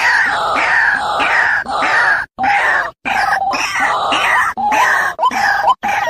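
White-breasted waterhen calling: a loud, harsh series of repeated notes, about three a second, the early notes falling in pitch and the later ones shorter and lower with a quick upward flick at the end. The series breaks off twice for a moment midway.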